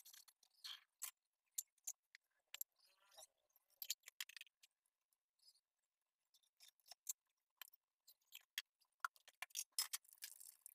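Faint, scattered clinks and clatters of steel kitchen utensils: a spatula and pots knocking against a non-stick kadai and each other on a gas stove. A soft hiss starts near the end as cut vegetables go into the pan.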